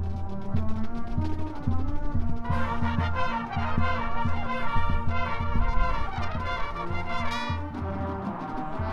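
College marching band playing: low notes pulse steadily underneath, and the brass swells into loud, full chords from about two and a half seconds in, easing back near the end.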